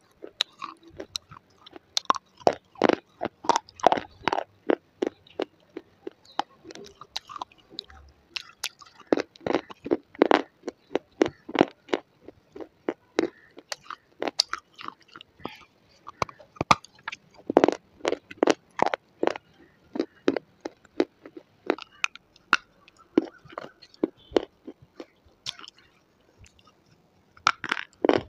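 Slate pencils being bitten and chewed right at a lapel microphone: crisp, irregular crunches, several a second, with short pauses between bites.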